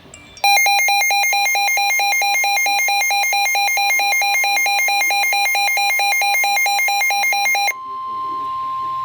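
Electronic weather-alert alarm sounding a rapid alternating beep for about seven seconds. It gives way to the steady single-pitch NOAA Weather Radio warning tone, which signals that a warning message is about to follow.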